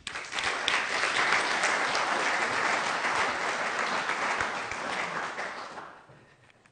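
Audience applauding, starting at once and fading away after about six seconds.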